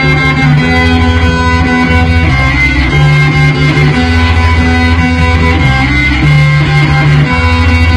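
Live rock band playing, guitar over a bass line that steps between held notes every second or so.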